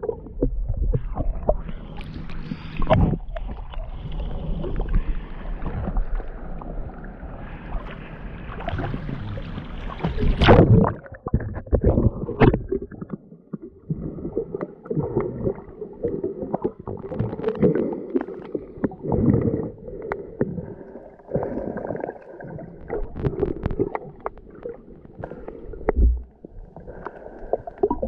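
Muffled water sloshing and gurgling around the microphone, with scattered knocks; the loudest knock comes about ten seconds in.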